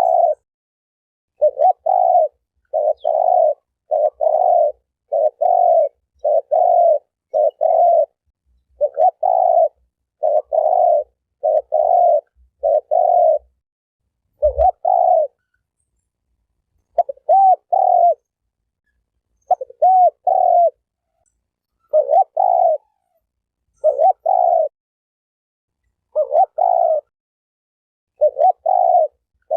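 Spotted dove cooing: a long run of short coos, often in pairs, roughly one a second with short pauses between groups. A single brief low thump about halfway through.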